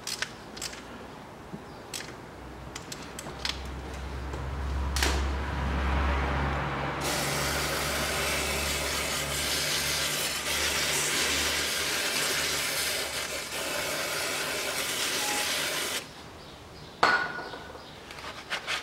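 A few ratchet clicks at the start, then an aerosol can of carburetor cleaner sprayed in one continuous hiss for about nine seconds that cuts off abruptly. A low rumble sits underneath the spraying.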